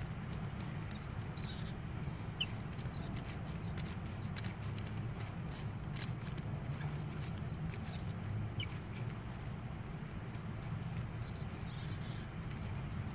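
A few short, high squeaks and scattered light clicks as a glow plug is slowly turned out of a 2004–06 Sprinter's aluminium cylinder head with a ratchet and extension. The squeaks come from the steel glow-plug threads turning in the aluminium head. A steady low hum runs underneath.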